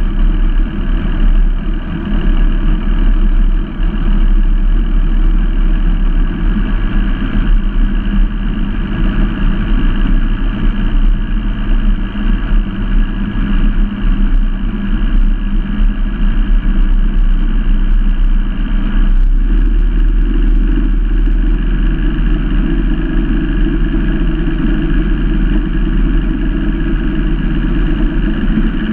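Outboard engine of an Allison Grand Sport speedboat running steadily at low speed close to the microphone, its tone shifting slightly about two-thirds of the way through.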